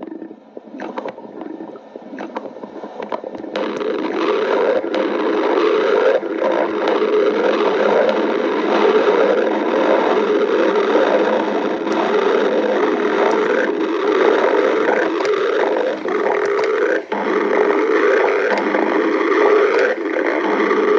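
Loud stomach growling: a continuous low churning gurgle that builds over the first few seconds and then keeps on, with a brief dip about 17 seconds in.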